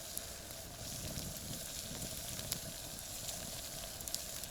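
Kettle of water boiling hard over a campfire: a steady hiss with scattered small crackles from the fire.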